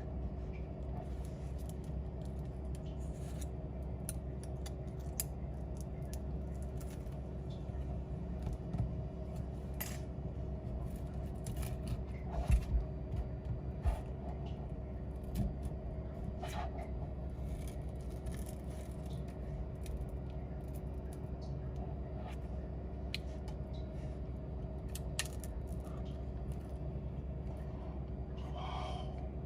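A steady hum runs throughout, with scattered small metallic clicks and taps of hand tools, a few louder ones about halfway through.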